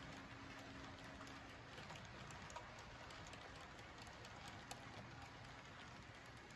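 Faint rolling of HO-scale model freight cars on the track: a soft even rumble with scattered light clicks of the wheels over rail joints and a faint low hum.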